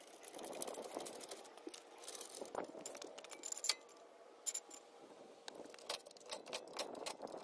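Scattered metallic clicks, clinks and rattles from pumping a floor jack and setting a jack stand under a pickup truck, the sharpest click about halfway through.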